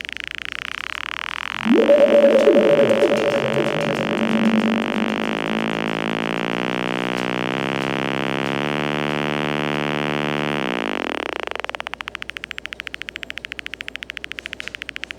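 Buzzing, pulsing electronic noise from a handmade analogue sound-effects circuit: a filter sweep down opens into pitched drones that step from pitch to pitch for about nine seconds, then the sweep rises again and the sound thins to a fast pulsing buzz.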